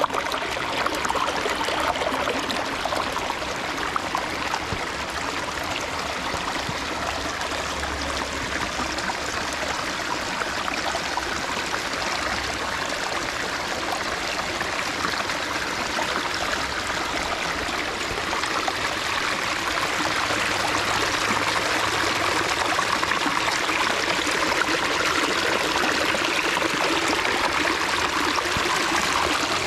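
Water running and splashing steadily down the rock cascade of a 14-foot pondless waterfall, a little louder in the last third.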